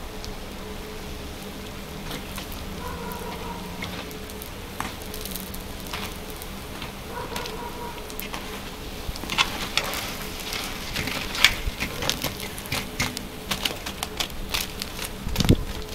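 Food sizzling and crackling as it roasts, the sharp crackles growing denser in the second half, over a steady low hum.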